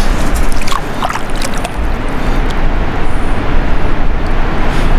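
Water splashing and sloshing around a big blue catfish held in the shallows for release, several quick splashes in the first couple of seconds, over a steady loud rushing noise.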